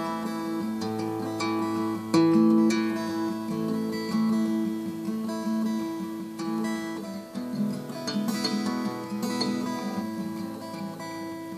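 Instrumental music led by acoustic guitar: plucked and strummed chords with notes that ring on, a new chord struck every second or so.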